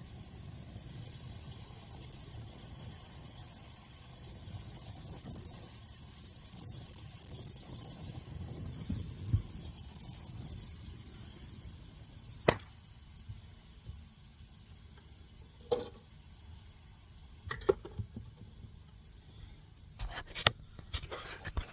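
Brazing torch flame hissing steadily while a refrigerant line joint is brazed. The hiss stops after a sharp click about twelve seconds in, and a few light clicks and taps follow.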